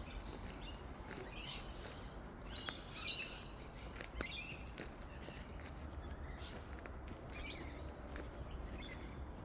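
Wild birds chirping in short, scattered calls, busiest around three to four seconds in, with a few sharp clicks and a steady low rumble underneath.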